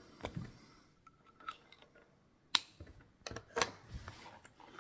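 Handling of a pocket pen and small kit items: a few scattered sharp clicks and light taps, the loudest a little after halfway and three more in quick succession near the end, over faint rustling.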